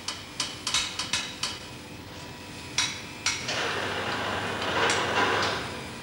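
Ski bend-testing rig loading a cross-country ski: its mechanism makes a run of quick metallic clicks that stops about a second and a half in. Two sharper clicks follow around three seconds, then a steady hiss builds as the ski is forced toward its breaking point.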